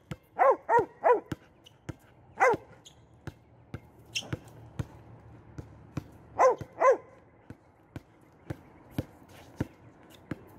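A dog barking in short, quick barks: three in a row near the start, one at about two and a half seconds, and two more about six and a half seconds in. Between the barks a basketball bounces on a concrete court as it is dribbled, making sharp knocks.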